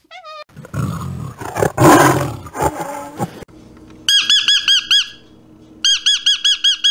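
A loud, harsh animal cry, followed by two quick runs of high, evenly repeated chirping calls from parrots, scarlet macaws, about seven calls a second.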